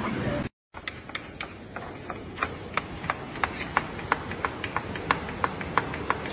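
A run of short, sharp clicks at a fairly even pace, about three a second, over a steady low hiss.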